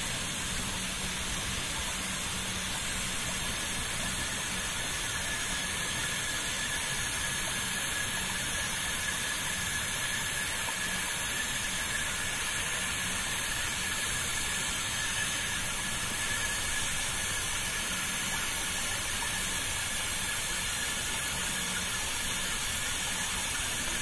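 Oil extractor pump running steadily with a constant hiss and a faint steady whine, its hose in the engine sump drawing out the last of the oil.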